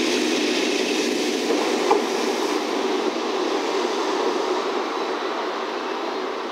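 A single EF65 electric locomotive running light past at close range, a steady rolling rumble of its wheels on the rails, with one sharp click about two seconds in. The sound thins and fades gradually as the locomotive draws away.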